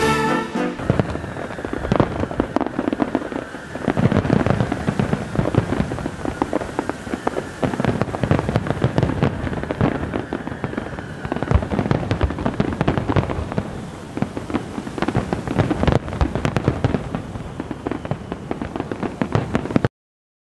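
Fireworks display: a dense, unbroken run of bangs and crackling, which cuts off suddenly near the end. Band music is dying away in the first second.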